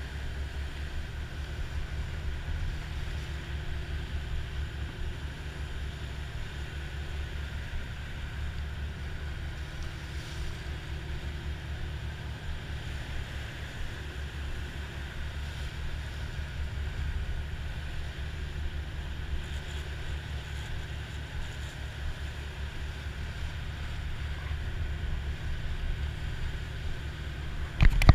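Sport-fishing boat under way while trolling: a steady low engine drone with the wash of the wake and wind on the microphone.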